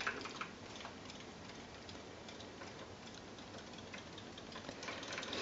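Faint, rapid ticking from battery-powered Zuru Robo Fish toys swimming in a sink of water, their tails wagging.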